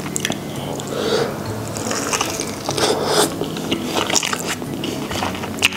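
Biting and chewing fried chicken coated in cheese sauce: irregular crisp crunches and wet squishes, with faint music under it.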